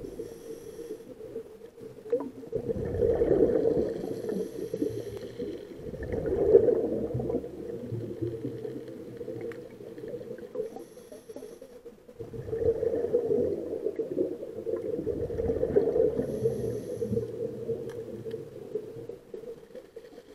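Scuba diver breathing through a regulator underwater, two breaths: each a short high hiss of inhalation followed by several seconds of rumbling, bubbling exhalation. A steady hum runs underneath.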